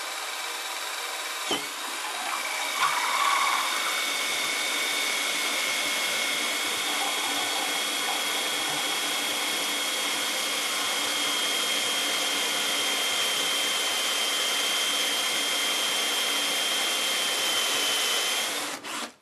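Hitachi 18-volt cordless drill running steadily with a quarter-inch drill saw bit cutting sideways through plexiglass: a steady high whine over the rasp of the cut, cutting the acrylic rather than melting it. Two clicks come within the first three seconds, and the drill stops suddenly near the end.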